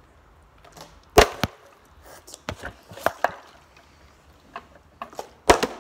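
Partly filled plastic water bottle being flipped and landing with sharp knocks: two loud ones, about a second in and near the end, with lighter knocks between.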